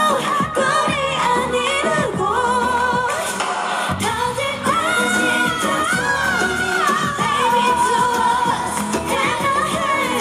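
K-pop dance song with female vocals, played loud through a stage sound system at a live performance. The bass drops out briefly about three seconds in and comes back a second later.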